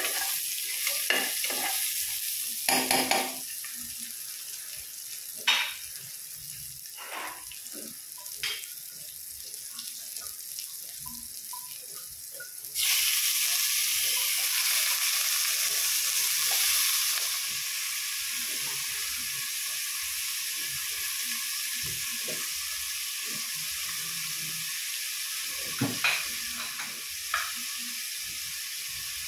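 Chopped onion and garlic sizzling in hot oil in a nonstick pot, with a spatula scraping and knocking against the pan as they are stirred. About thirteen seconds in, raw chicken pieces go into the pot and the sizzle suddenly gets much louder, then settles after a few seconds to a steady sizzle, with a few more spatula knocks near the end.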